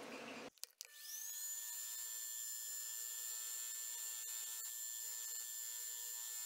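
Brief scratchy hand sanding, then about a second in a motor spins up a cloth buffing wheel that settles into a steady whine, with the knife's handle being buffed against the spinning wheel.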